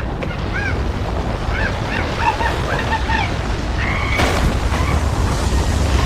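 Steady, loud low rumbling wind noise of a tornado, with a string of short high-pitched cries over it and a longer cry about four seconds in.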